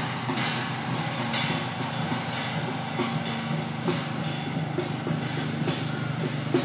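Taoist festival procession percussion: drums and cymbals struck in a steady beat, with a crash about once a second, over a steady low hum.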